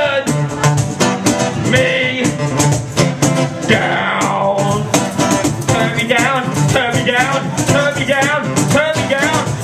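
Live amplified music: a guitar plays under a voice performing into a microphone, over a fast, steady beat of sharp percussive clicks. The vocal line wavers in pitch and grows stronger in the second half.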